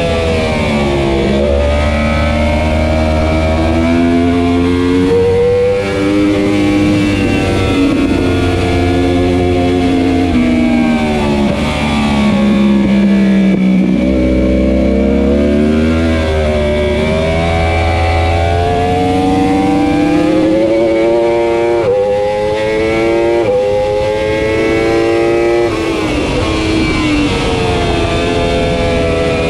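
2015 Yamaha R1's crossplane inline-four at racing speed, revs climbing and falling with the gear changes: quick drops at the upshifts and low revs through the slow corner about fourteen seconds in.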